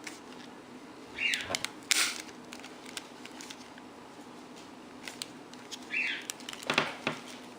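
Plastic vacuum hose connector parts being handled and forced together: scattered clicks and knocks with rubbing, and two short squeaks, about a second in and about six seconds in.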